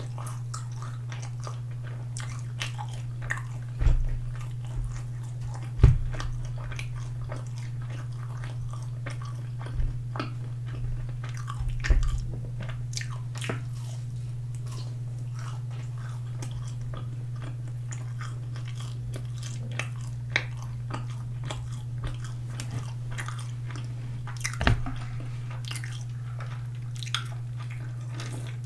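Close-miked biting and chewing of sauce-coated boneless fried chicken, with crunching and many small crackles, and a few louder low thumps. A steady low hum runs underneath.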